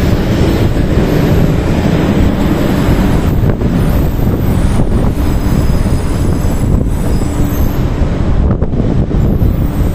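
A 500 Series Shinkansen train moving slowly along the platform: a loud, steady rumble of wheels and running gear, with wind buffeting the microphone.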